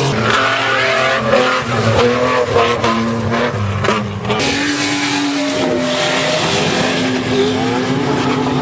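4x4 SUV engines revving hard under load as they climb sand dunes. The engine note rises and falls through the first half, then holds high and steady for the last few seconds.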